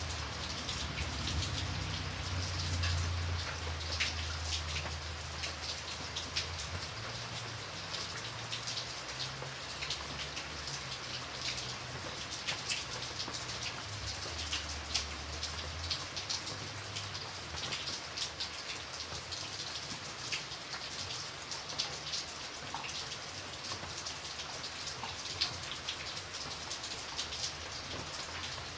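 Steady rain, with many distinct raindrops hitting a surface over the hiss of the downpour. A low rumble runs underneath through the first half and fades out about midway.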